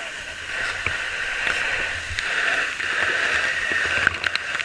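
Fire hose nozzle spraying water, a steady hiss that swells and eases a little, with a few sharp clicks near the end.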